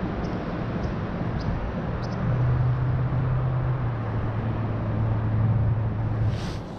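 River water rushing over a shallow riffle, with a low steady hum that swells about two seconds in and fades near the end.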